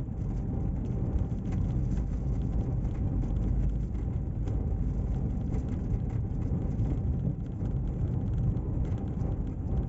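Car driving on a cobblestone street, heard from inside the cabin: a steady low rumble of the tyres running over the stones, with the engine underneath.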